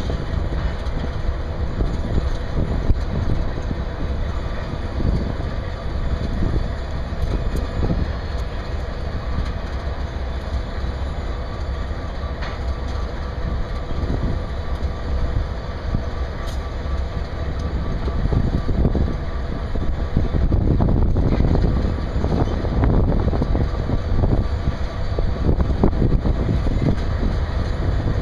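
CSX diesel-electric freight locomotives idling: a steady low engine rumble with a constant hum, growing somewhat louder about two-thirds of the way through.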